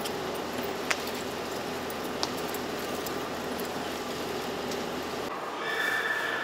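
Tour coach engine idling in an underground car park: a steady rumble and hiss, with two sharp clicks in the first few seconds. Near the end the rumble drops away and a quieter background with a faint steady tone takes over.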